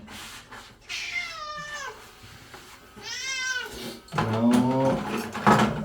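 Domestic cat meowing twice: a long falling meow about a second in and a higher, arching meow about three seconds in. A louder, lower voice follows in the last couple of seconds.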